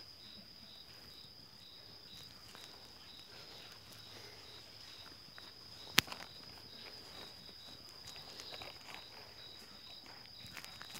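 Night insects, likely crickets, chirping: a steady high trill with a second chirp pulsing about three times a second. A single sharp click about six seconds in, and scattered faint knocks.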